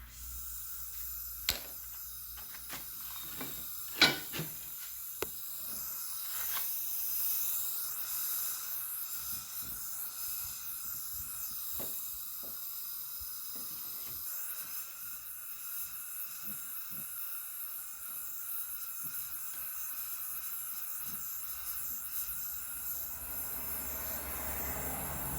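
Steady hiss of the heating tool shrinking a heat-shrink sleeve over a crimped wire joint on the submersible motor's leads, with a few sharp clicks of handling in the first five seconds.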